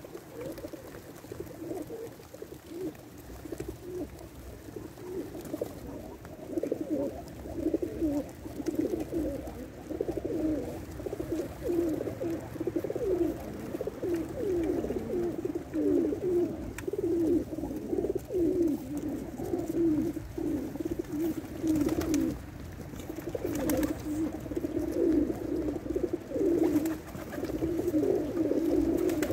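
A flock of Pakistani high flyer pigeons cooing, many birds' coos overlapping into a constant low warbling murmur that grows busier and louder about six seconds in.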